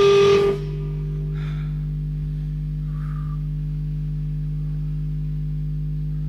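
Electric guitar through an amp: a chord struck hard at the start, then left ringing as a steady sustained drone, with a couple of faint scrapes.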